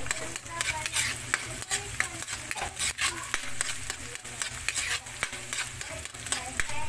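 Chopped onion and garlic sizzling in oil in a metal pan while a metal utensil stirs and scrapes them, with quick, repeated scrapes and clicks against the pan.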